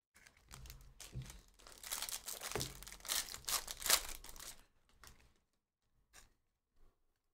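Foil wrapper of a trading-card pack being torn open and crinkled: a dense crackling that builds for about four seconds, then stops, leaving a few soft clicks.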